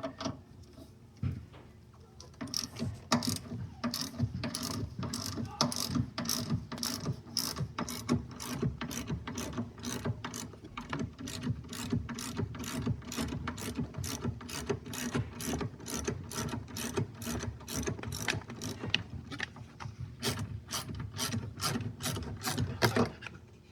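Hand ratchet with a T50 Torx bit clicking steadily, about two or three clicks a second, as a seatbelt pretensioner's mounting bolt is backed out.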